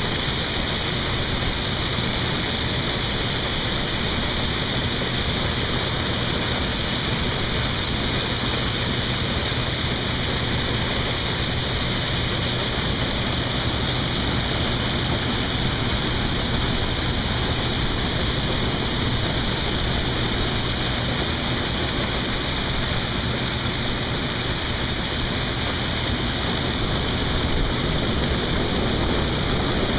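Steady, unbroken machine noise of corn-harvest equipment running, a constant rushing sound with a strong high hiss and no change in pace.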